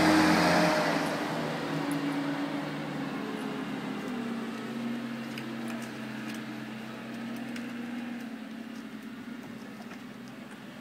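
A motor vehicle's engine drone, loud at first and fading away over several seconds as it recedes, with a few faint light clicks over it.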